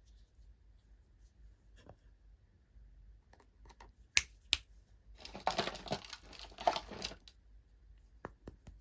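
Packaging being opened by hand: two sharp clicks, then about two seconds of crinkling and tearing, then a few light taps near the end.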